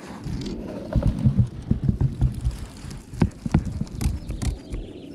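Zucchini leaves and stems being handled close to the microphone, with low bumps and rustling. Then come a few sharp clicks, starting about three seconds in, as pruning shears snip a zucchini off the plant.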